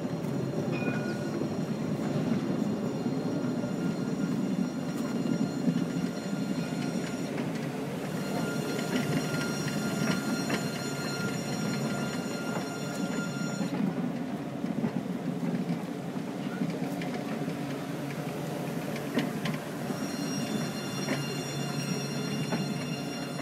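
Montpellier line 3 tram gliding slowly past alongside the platform, a steady low rumble. A high steady whine joins in about a third of the way through, drops away around the middle, and returns near the end.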